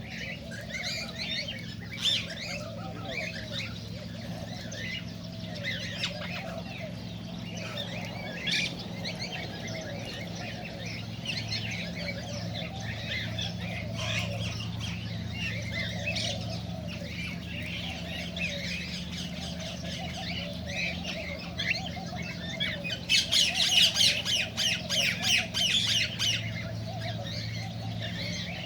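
Cockatiels chirping and chattering continuously, with a louder run of rapid squawking calls about 23 seconds in that lasts a few seconds. A steady low hum runs underneath.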